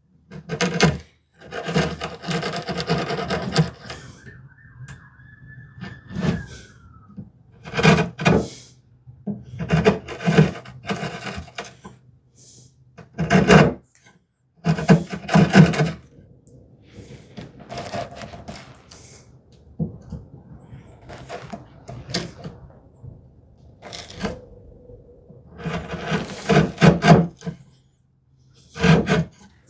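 Chisel work in a cherry hinge mortise: light taps on the chisel and paring cuts in the wood, coming in irregular bursts. A short high squeak a few seconds in drops in pitch as it ends.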